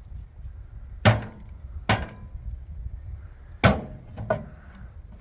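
Hammer blows on a microwave oven: three hard strikes, about a second and a half apart at first, then a lighter knock.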